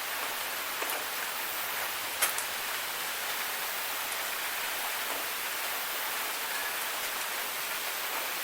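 Steady rain falling, an even hiss with a few sharper drop impacts standing out, the clearest a little after two seconds in.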